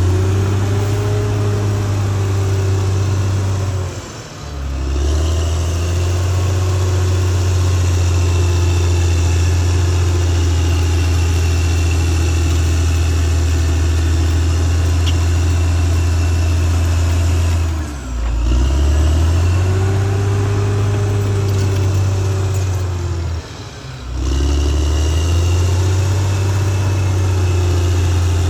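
Caterpillar D6R XL bulldozer's diesel engine running loud and steady under load. Its speed drops briefly three times, about four seconds in, around eighteen seconds and near twenty-four seconds, and each time climbs back up.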